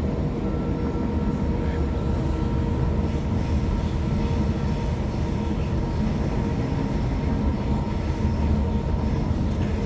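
Waratah electric multiple-unit train running, heard from inside the carriage: a steady low rumble with a faint, even electric hum.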